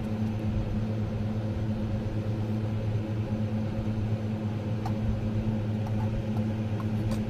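Steady low electrical hum, with a few faint clinks of steel dishes near the end.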